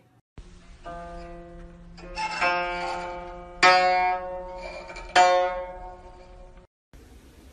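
Strings of a guzheng-style zither with movable bridges, pawed by a cat: a few loose strokes across the strings, each ringing on. The two loudest strokes come about three and a half and five seconds in, and the ringing cuts off abruptly near the end.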